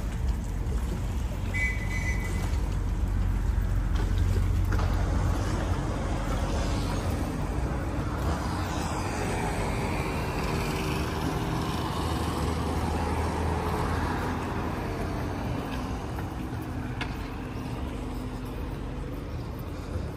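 An engine running with a steady low rumble, its pitch slowly bending up and down in the middle of the stretch as it passes or changes speed. A brief high beep sounds about two seconds in.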